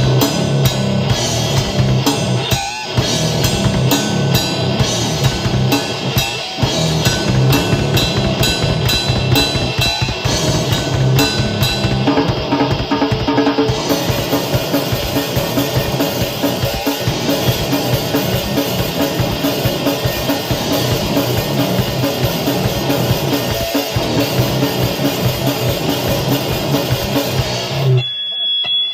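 Grindcore band playing at full tilt: very fast, dense drum-kit hits under heavy band music. The music cuts off abruptly about a second before the end.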